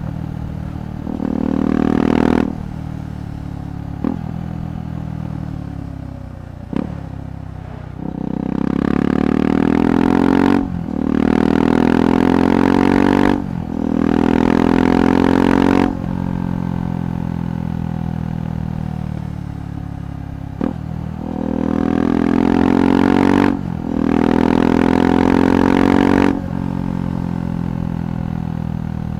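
KTM 390 Adventure's single-cylinder engine through a Red Rooster aftermarket exhaust, accelerating in repeated pulls: the revs climb, then drop sharply at each upshift, with steadier cruising between the bursts.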